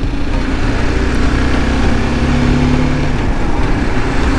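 BMW G310GS single-cylinder motorcycle engine running at a steady, light cruise, with wind and road noise on the microphone.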